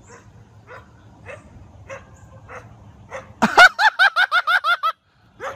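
Small dog barking faintly about every half second, then breaking into a loud, rapid string of high-pitched yips, about seven a second, a little past halfway through.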